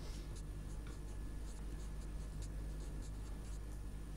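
Handwriting: faint, short, irregular scratching strokes of writing, over a low steady electrical hum.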